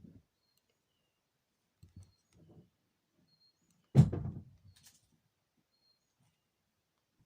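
A single loud thump about four seconds in, dying away over about half a second, after a few faint knocks about two seconds in.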